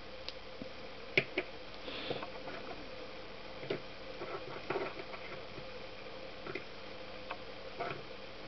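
A few light clicks and taps of small metal-cased water pump seals being handled, turned over and set down on a workbench, the sharpest about a second in.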